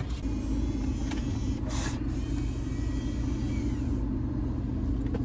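Steady low rumble of road and engine noise inside a moving car's cabin, with a brief breathy hiss about two seconds in.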